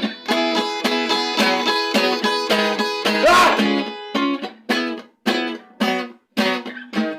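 Acoustic guitar strummed in short, choppy chords, about three strokes a second. After about four seconds the strokes are cut short, leaving brief silent gaps between them.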